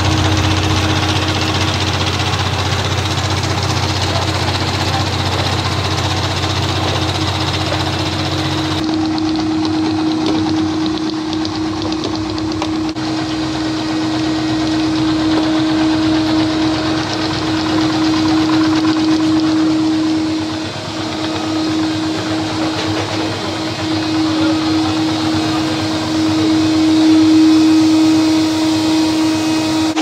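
Three-layer rotary dishwasher-tablet press running at high speed: a steady mechanical drone with a constant mid-pitched tone. A deep hum underneath drops out about nine seconds in.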